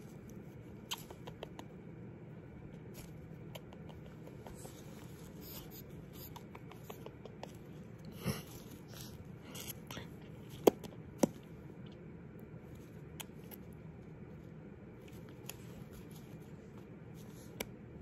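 Quiet scattered clicks and scratches from a sun conure nibbling and nuzzling at close range, with a few sharper clicks about halfway through, over a low steady room hum.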